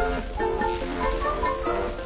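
Background music: a tune of short, changing notes over a steady bass.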